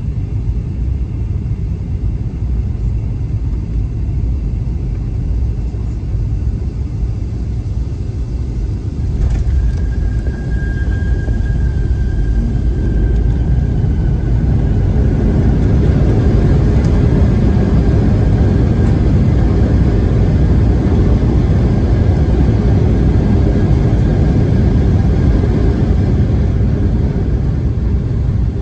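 Cabin noise of a Boeing 757-200 landing, heard from a window seat: a steady low rumble, a sharp thump about nine seconds in as the wheels touch down, then a louder rush building a few seconds later and holding as the jet slows on the runway, easing near the end.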